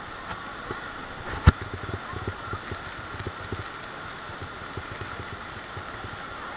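Steady rush of Niagara Falls' water and spray around a tour boat, with drops and gusts hitting the microphone in irregular low thumps and one sharp knock about a second and a half in.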